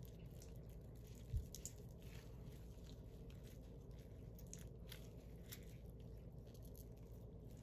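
Faint wet squishing and crackling as gloved fingers work raw chicken wing meat and skin down off the bone. There is one dull low bump about a second in.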